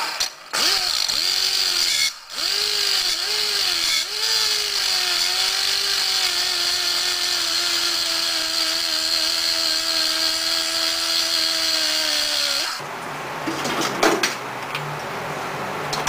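Handheld grinder with an abrasive cut-off disc cutting through steel roller chain clamped in a vise. Its whine dips several times in the first few seconds as the disc bites, then it grinds steadily and stops about 13 seconds in. A few metallic clicks follow as the cut chain is handled.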